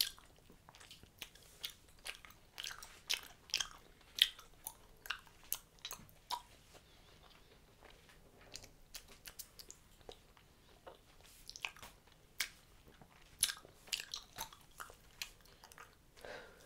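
A mouthful of Hubba Bubba bubble gum being chewed: irregular sharp clicks about two a second, thinning out for a few seconds in the middle.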